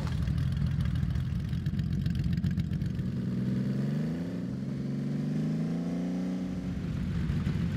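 Honda Valkyrie's flat-six engine idling, then revved up about three and a half seconds in, held at raised revs for a couple of seconds, and let back down to idle near the end. This is a stationary exhaust noise test, with a sound level meter set at the exhaust.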